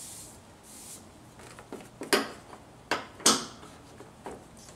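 Plastic discharge chute deflector knocking against the metal mower deck as its notches are worked into the deck's square holes: light rustling, then three sharp knocks in the middle, the last the loudest, and a lighter one near the end.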